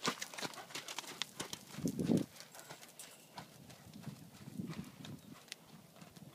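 Horse trotting on a sand arena surface: a quick, even run of hoofbeats. The hoofbeats are loudest in the first couple of seconds as the horse passes close by, then grow fainter as it moves away. A short low rumble comes about two seconds in.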